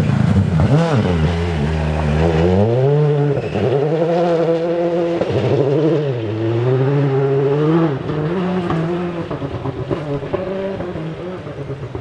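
Citroën C3 Rally2 rally car's engine revving hard along a cobbled stage road, the revs climbing and dropping several times, then fading away over the last few seconds.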